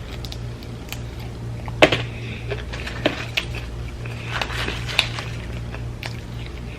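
Close-up eating sounds: scattered sharp clicks and taps of utensils and food containers, the loudest about two seconds in, with a short crackly stretch of chewing or handling of food about four and a half seconds in, over a steady low hum.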